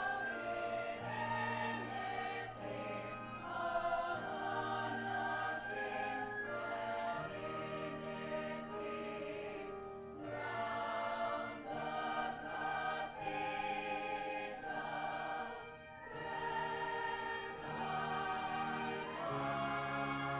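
Musical-theatre chorus singing together in long held chords over instrumental accompaniment with a steady bass line.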